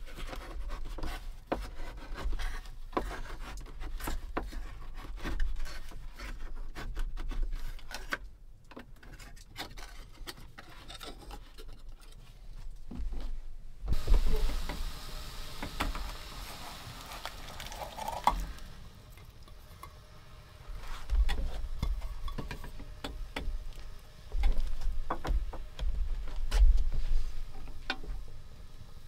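A knife blade being worked into and around the lid of a tin can, a long run of metal clicks and scrapes. About halfway there is a few seconds of hissing as the opened can heats on the wood-stove top, then the scrape of a utensil stirring inside the can.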